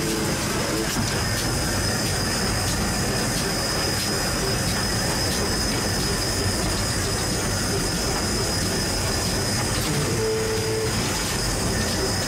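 Steam locomotive running, heard from its footplate: a steady noise of wheels on rail with a continuous high-pitched squeal or hiss and faint regular clicks.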